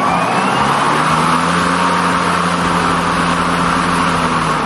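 Ryobi 40V HP battery-powered lawnmower's brushless electric motor and blade running at full speed: a steady whir with a rush of air from the spinning blade, which begins to wind down at the very end.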